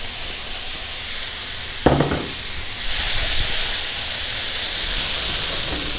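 Cauliflower mixture with tomato paste sizzling in a stainless steel pan preheated in a very hot oven, a steady hiss that grows brighter about three seconds in. A short knock comes about two seconds in.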